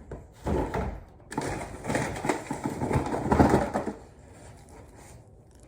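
Packaging handled and crinkled: a short rustle, then about two and a half seconds of dense crackling and rustling that dies down near the end.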